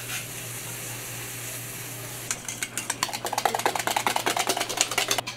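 Dashi broth boiling in a pot, a steady bubbling hiss. About two seconds in, a wire whisk starts beating eggs in a stainless steel bowl, a fast run of clicking strokes against the metal that stops just before the end.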